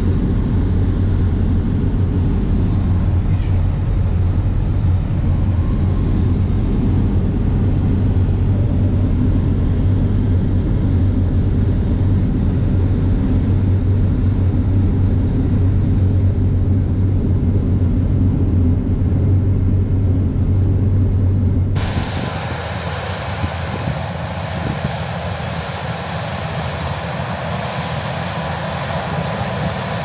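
Large farm harvest machinery running steadily, a deep engine rumble. About 22 seconds in it cuts abruptly to a different, hissier machine sound with much less low rumble.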